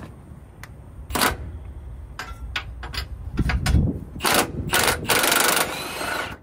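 Milwaukee M18 1/2-inch cordless impact wrench firing in short trigger blips, then hammering in a longer run about five seconds in, breaking loose a semi truck's torsion bar mounting bolt.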